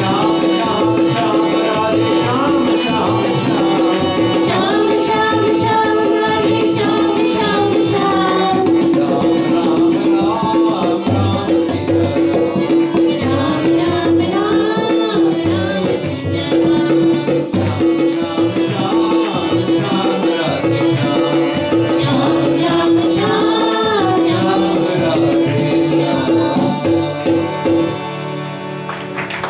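Devotional bhajan: a male voice singing over a steady harmonium drone with hand-drum (dholak) accompaniment. The music stops just before the end.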